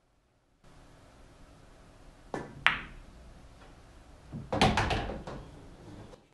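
A pool shot: a soft tap of the cue tip on the cue ball, then a sharp click as the cue ball hits the object ball, about two and a half seconds in. About two seconds later the object ball drops into a corner pocket with a cluster of heavy knocks and thuds, the loudest sound here.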